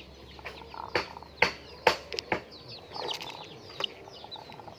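Laying hens clucking and calling, with several sharp clicks among the calls.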